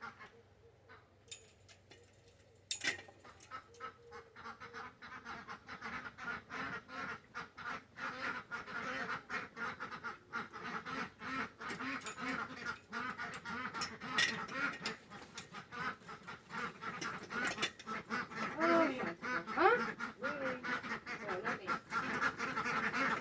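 A flock of domestic ducks quacking and chattering in rapid, overlapping calls. They start about three seconds in and grow louder, with a few rising calls near the end.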